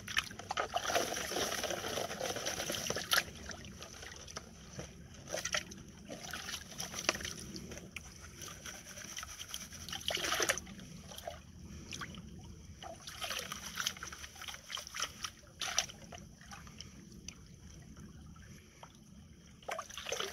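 Gold pan being worked in water: sloshing and trickling as dirt is washed down to the concentrate, with irregular splashes every few seconds. It is louder in the first few seconds and quieter near the end.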